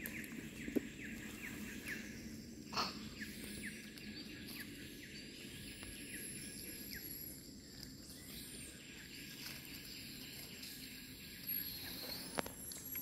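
Outdoor natural ambience: a steady high insect drone, short chirps repeating about twice a second through the first half, and a faint knock about three seconds in.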